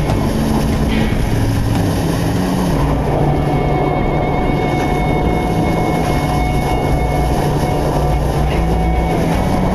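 Steady rush and splash of water as the bow of a Contest 29 sailboat drives through choppy waves under sail.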